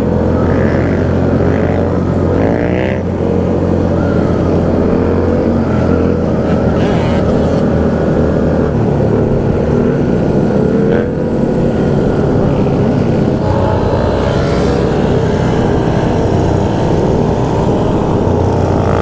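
Motorcycle engines running during a group ride: a steady engine drone under way, with other bikes revving and accelerating in rising sweeps about two seconds in and again around thirteen seconds in.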